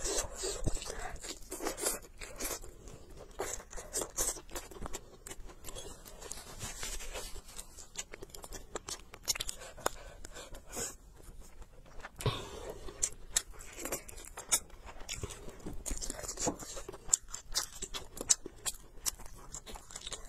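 Close-miked chewing and gnawing on a spicy cured duck leg, with irregular small crunches and clicks as the meat is torn from the bone.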